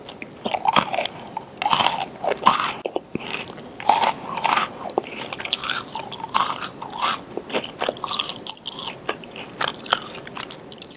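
A person biting and chewing a chocolate chip cookie close to the microphone, with irregular crunching and crackling as it is chewed.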